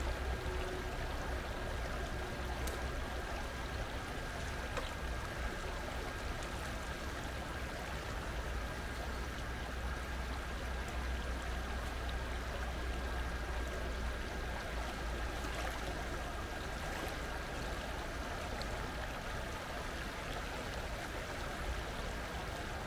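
Stream water flowing steadily, an even rushing with no breaks.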